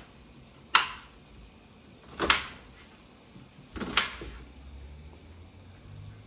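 Knife cutting through an onion and knocking down on a cutting board: a few separate sharp knocks, some in quick pairs, about a second and a half apart.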